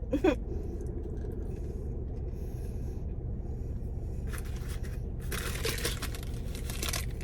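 Rustling and scraping of paper food packaging in three stretches, the longest about five seconds in, over a steady low hum.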